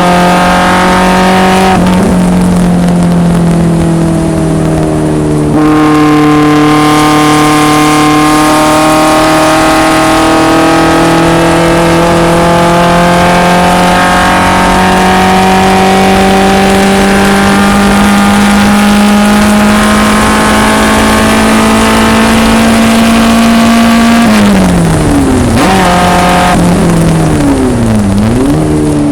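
Onboard sound of a BMW 2002 race car's engine under load at full throttle, its pitch climbing slowly for about twenty seconds in a high gear. Near the end the revs drop sharply off throttle, and there are two quick rev dips and recoveries that sound like downshifts under braking.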